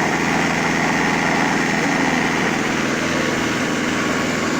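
Electric blender motor running steadily, mixing cake batter, then cutting off suddenly at the very end.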